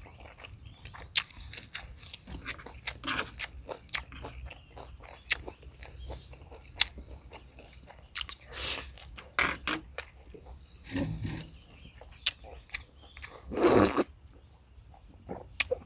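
A person eating close to the microphone: chewing, with many small clicks of a spoon and of the food. There are two louder noisy bursts, one about halfway through and one near the end. A steady high insect chirp, pulsing about twice a second, runs behind.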